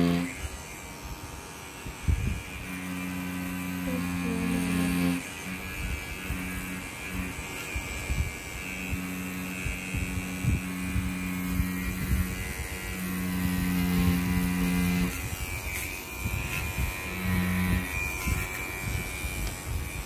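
Cordless rotary tattoo pen buzzing as its needle lines designs on practice skin, with a steady high whine and a low hum that comes and goes in stretches of a few seconds.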